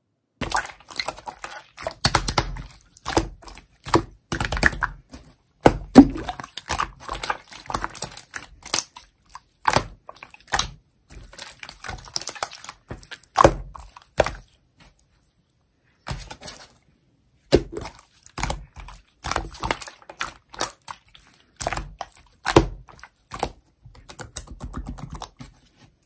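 Clear slime made from aloe soothing gel being stretched, folded and pressed by hand, giving a quick, irregular run of sharp clicks and pops. It pauses for a few seconds a little past halfway.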